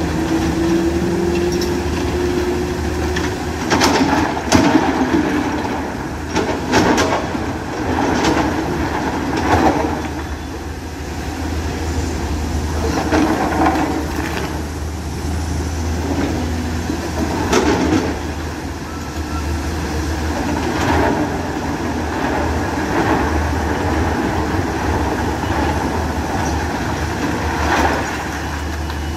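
Hydraulic crawler excavator's diesel engine running steadily under load, its note rising slightly over the first couple of seconds. Irregular clanks and rattles of steel and rock, about ten in all, as the bucket works a pile of crushed stone.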